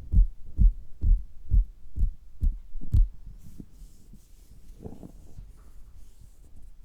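Tapping on a stomach heard through a stethoscope: dull, low thumps about two a second that stop about three seconds in. Faint rustling follows.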